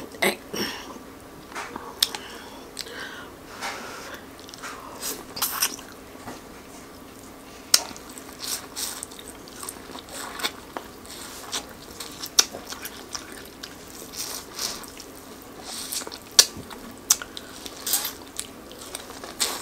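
Close-up biting and chewing of corn on the cob coated in sauce: irregular crisp crunches as kernels are bitten off the cob, with wet mouth sounds between them.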